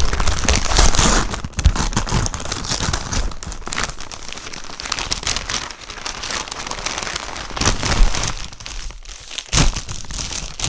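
Packaging crinkling and tearing in irregular bursts as a delivery parcel is opened and its contents are handled.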